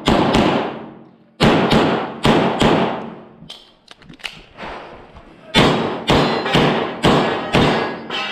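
Handgun fired in rapid strings, mostly quick pairs of shots, with a pause of about two seconds in the middle. Each shot echoes briefly.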